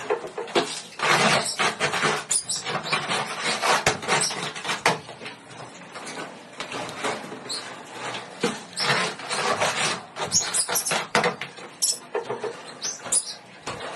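Small pet parrots chirping and squeaking in short bursts, mixed with many quick clicks and scratches.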